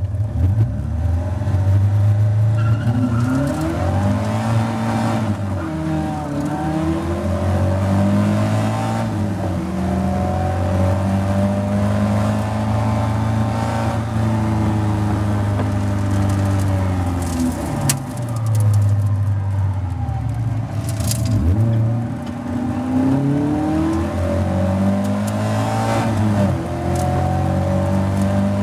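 Caterham Seven Academy race car's four-cylinder engine heard from the cockpit at full throttle. The pitch climbs through each gear and drops sharply at every change or lift, then climbs again, with other Caterhams racing close by.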